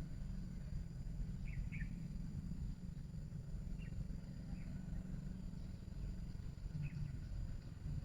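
Outdoor ambience: a few short, high bird chirps, scattered and far apart, over a steady low rumble.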